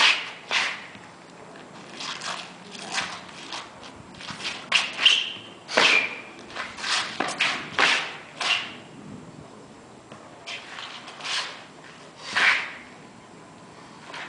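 Chinese straight sword (jian) swung through the air in a series of short swishes, about a dozen spread unevenly, with sneakers scuffing and stepping on asphalt between them.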